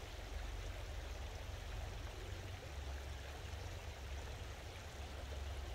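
Small creek running over a gravel bed, a steady, faint rush of water.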